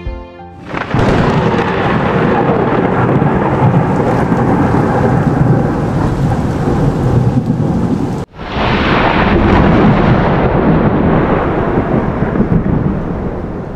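Thunderstorm sound effect: steady heavy rain with deep rumbling thunder, loud throughout, cut off sharply about eight seconds in and starting again straight away.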